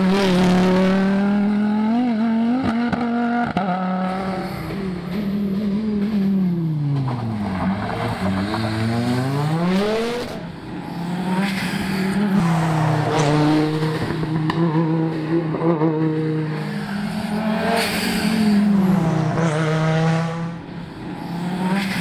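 Audi Sport quattro S1 rally car's turbocharged five-cylinder engine driven hard past the microphone. The revs fall to a low note and climb back up about eight seconds in, then rise and drop in steps with quick gear changes, with a few sharp cracks about two to three seconds in.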